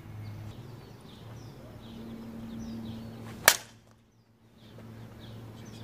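Slowpitch softball bat striking a softball: one sharp crack about three and a half seconds in, with faint bird chirps behind it.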